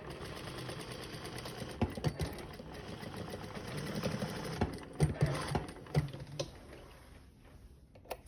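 Sewing machine running and stitching at a fast, even rate, with several louder clicks and clunks partway through. It slows and stops near the end.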